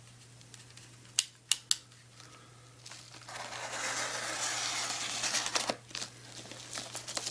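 A few sharp clicks, then a padded bubble mailer being torn open with a long ripping sound lasting about three seconds, followed by crinkling of the envelope.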